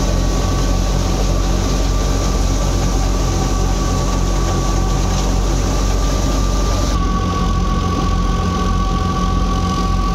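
Wheat thresher running steadily, a loud continuous machine drone with an even low pulse and a steady whine, as threshed grain pours from its outlet chute.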